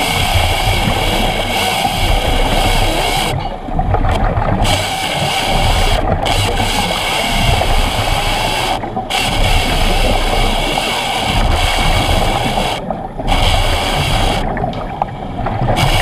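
Hydraulic chainsaw, fed about 4 gallons per minute, running steadily as it cuts through a wooden post underwater. The high part of the sound dips out briefly several times as the cut goes on.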